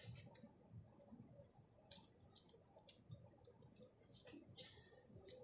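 Faint, irregular plastic clicks of a QiYi 1x2x3 puzzle cube's layers being turned by hand.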